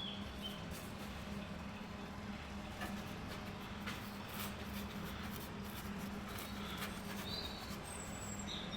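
A few short, high bird chirps, one at the start and a couple near the end, over a steady low hum with faint scattered ticks.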